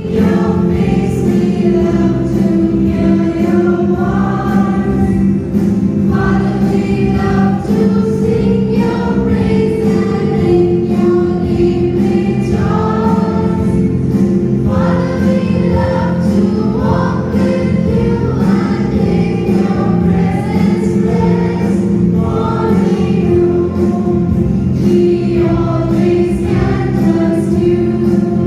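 Christian gospel music with a choir singing over sustained accompaniment, loud and continuous, starting abruptly.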